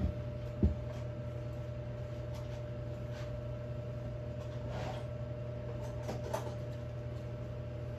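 A single knock about half a second in as the duct-taped steel hitch ball mount is set down on the wooden workbench, then a steady low hum with a faint higher tone and a few soft handling sounds.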